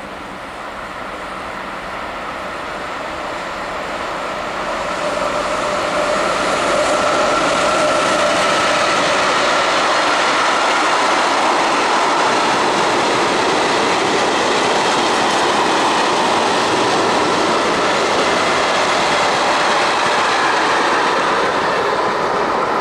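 Mixed freight train of tank wagons and covered wagons passing on rails: wheel-on-rail noise that grows louder over the first several seconds as it approaches, then holds steady and loud as the wagons roll by, with a faint clickety-clack of wheels over rail joints.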